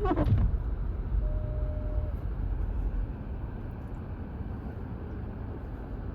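Cabin noise of an SUV driving: a steady low road and engine rumble that eases off about three seconds in. A brief faint steady tone sounds about a second in.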